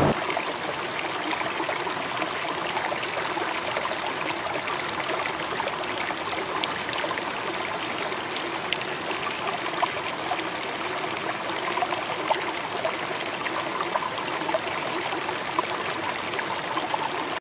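Shallow riffle of the Nantahala River flowing over rocks close to the microphone: a steady rush of water with scattered small splashes and ticks.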